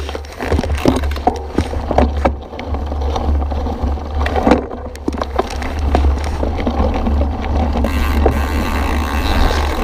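Mountain bike riding down a rough dirt trail, heard from a camera mounted on the handlebars: a steady low rumble of wind and tyre noise with frequent sharp rattles and knocks as the bike goes over bumps, getting louder about halfway through as the pace picks up.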